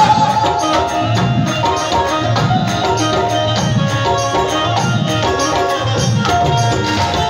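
Instrumental passage of live Indian devotional music: drums keep a steady rhythmic beat under a melody of held notes, with no singing.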